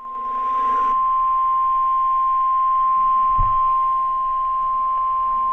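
NOAA Weather Radio's 1050 Hz Warning Alarm Tone: one steady, loud single-pitched beep that signals a new warning is about to be broadcast. A short low thump comes about three and a half seconds in.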